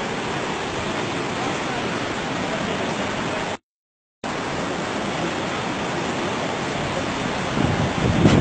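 Steady rush of a river in flood and waterfalls pouring off the cliffs, an even hiss of water. The sound cuts out completely for about half a second near the middle, and wind starts buffeting the microphone near the end.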